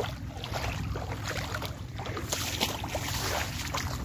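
Strong wind blowing on the microphone as a steady low rumble, with wheat stalks and ears rustling.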